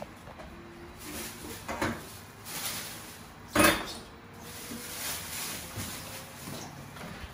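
A few household knocks and clatters, the loudest a sharp knock about three and a half seconds in, with a smaller one a little before two seconds.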